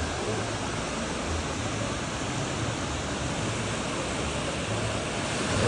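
Steady rushing noise of ocean surf and wind, even throughout with no distinct events.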